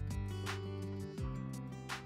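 Background music with a steady drum beat over sustained chords.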